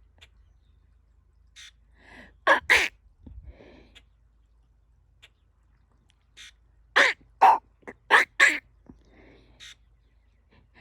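A bird giving short, harsh, crow-like calls: a pair about two and a half seconds in, then a quick run of about five near the middle, with fainter chirps between. This is the bird calling back as if answering a person.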